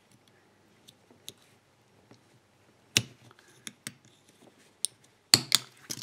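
Small scattered clicks and snaps of a plastic padlock cover being cut and pried away from its aluminium body with a utility knife and screwdriver, with a sharp crack about three seconds in and a few louder snaps near the end.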